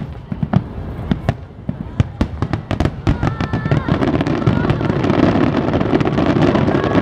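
Aerial firework shells bursting in a finale barrage: a rapid string of sharp bangs, then from about four seconds in a dense, continuous mass of overlapping bursts and crackling that grows louder.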